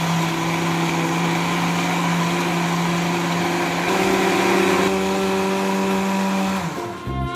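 Countertop electric blender running at speed, churning rolled oats and water: a steady motor hum over a whooshing wash. The hum steps up in pitch about four seconds in, and the motor stops shortly before the end.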